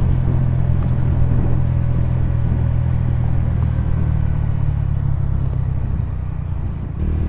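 Honda CBR125's single-cylinder four-stroke engine running at a steady note while riding, over road and wind noise, easing slightly near the end.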